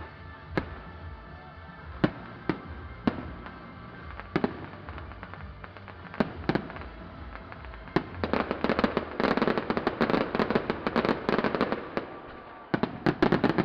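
Aerial fireworks bursting: single sharp bangs a second or two apart, then a dense rapid barrage of many bursts for about four seconds, and another quick cluster of bangs near the end.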